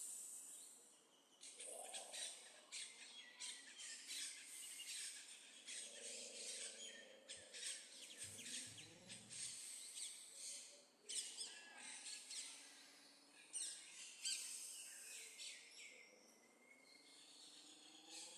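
Birds chirping faintly, many short high-pitched calls overlapping one another.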